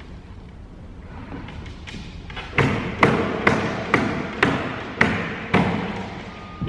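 A hand knocking a plywood rail into a tight-fitting cutout in a side panel: a run of about eight sharp thuds, roughly two a second, starting a little over two seconds in.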